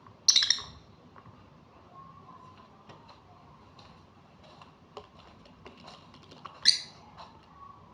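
Peach-faced lovebird giving two short, shrill calls, one just after the start and one near the end, with faint small clicks between them.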